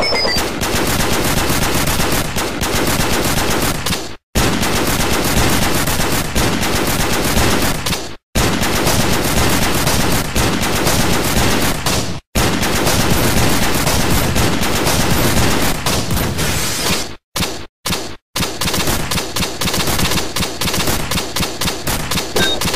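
Rapid automatic gunfire, continuous and dense, broken by sudden cuts to silence about 4, 8 and 12 seconds in and three quick ones around 17 to 18 seconds.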